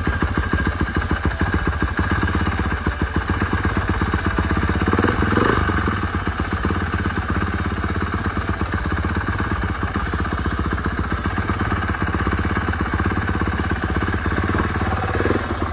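Motocross bike engine idling steadily just after being kick-started, with a brief rise in engine speed about five seconds in.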